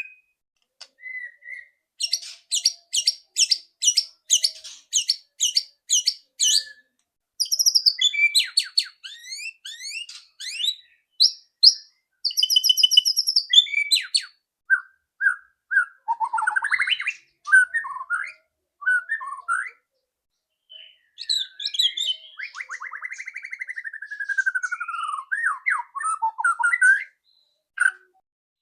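White-rumped shama singing: a quick string of sharp, evenly spaced rattling 'ketrekan' notes, followed by varied whistled phrases and a long falling whistle near the end.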